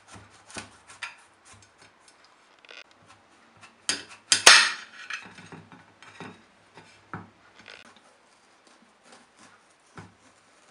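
Chef's knife cutting through the stalk end of a squash, with irregular scrapes, clicks and knocks of the blade and squash on a cutting board. A sharp, loud knock about four and a half seconds in, with a short ring after it.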